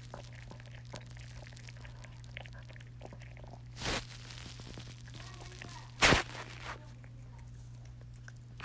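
Small dog chewing a crunchy treat off a carpet, with faint small clicks and two louder crunches about four and six seconds in, over a steady low hum.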